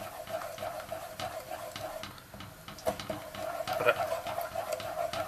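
Wooden spoon stirring melting sugar in a pot on the heat, scraping steadily over the bottom as the sugar turns to caramel, with a light knock of the spoon about three seconds in.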